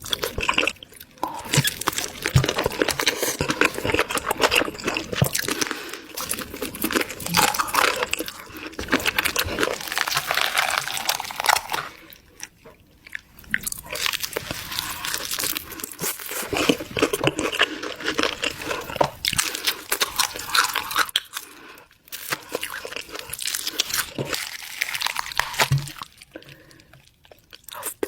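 Close-up crunching and chewing of crispy chicken, with rapid crackly bites. There are two short pauses, about halfway through and near the end.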